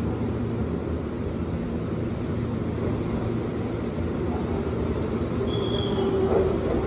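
A Keihan 6000 series electric train pulling into the station, a steady low rumble of wheels and motors that builds slightly as it comes closer. A brief high squeal sounds near the end.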